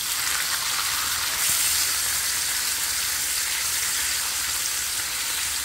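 Ribeye steaks sizzling in butter and olive oil in a cast-iron skillet, a steady frying hiss that swells for a moment about one and a half seconds in as a steak is turned over with tongs.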